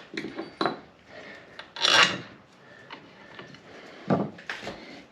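Metal parts of a rear differential being handled during reassembly: a few sharp clicks and knocks, with one short, loud scrape about two seconds in.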